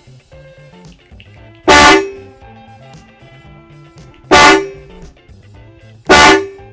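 Two çat çat electric trumpet car horns sounding together in three short, very loud blasts, about two seconds apart.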